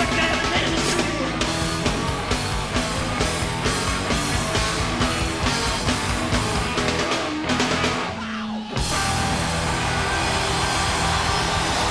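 Live punk-metal band playing loud and fast, with a drum kit pounding and distorted electric guitar. About eight seconds in the beat breaks off briefly and gives way to a steady, noisy sustained wash.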